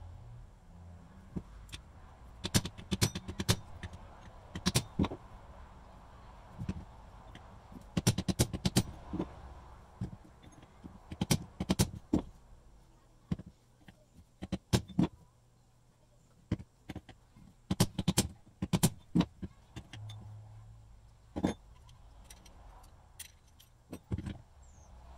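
Irregular metallic clicks, taps and clinks of hand tools and small metal parts being handled while the brush housings are taken off an old Skilsaw model 77 circular saw.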